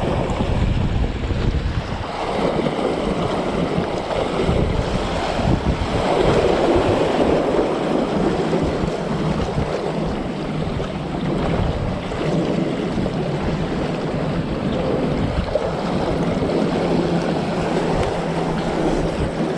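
Strong wind buffeting the microphone over sea waves washing against the shore, a steady rushing noise with gusts. A faint steady low hum joins in near the end.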